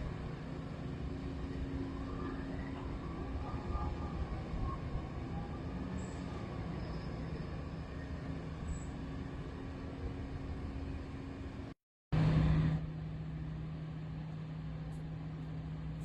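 Steady low drone of a large river-clearing work vessel's engines, a constant hum over noise. Nearly twelve seconds in the sound cuts out for a moment and returns briefly louder.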